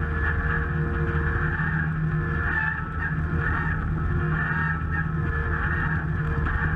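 Logbullet miniforwarder's engine running steadily as the machine drives along a snowy forest track, with a rhythmic pulsing higher up in the sound.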